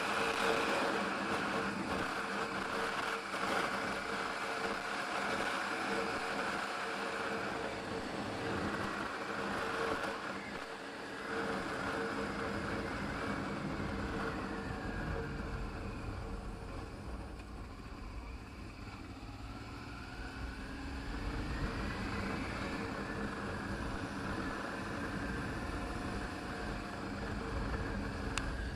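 Motorcycle engine running while being ridden, a steady note for the first half that drops away around the middle and climbs again later, with a deeper rumble growing in the second half.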